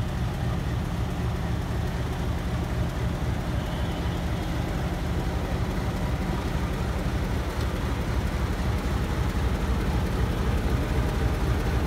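Diesel locomotive engine running with a steady low drone as the locomotive pulls slowly away from the station, getting a little louder near the end as it comes alongside.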